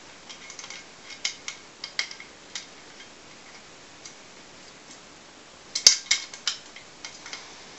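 Small metal flask being handled: light clicks and taps as its cap is worked in the first couple of seconds, then a louder cluster of sharp clicks about six seconds in and a few fainter ones after.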